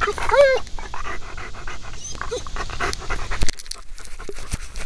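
Search-and-rescue dog panting rapidly, heard right up close from a camera on its harness, with a brief wavering whine about half a second in.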